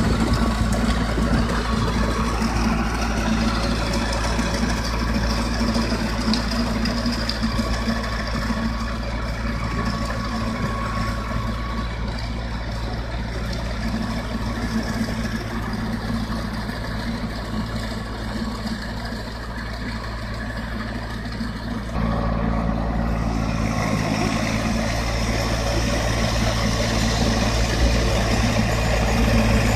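Indo Farm 1026 orchard tractor's diesel engine running steadily while it pulls a rotavator through the soil. The sound eases off somewhat in the middle as the tractor moves away, then grows louder toward the end as it comes back closer.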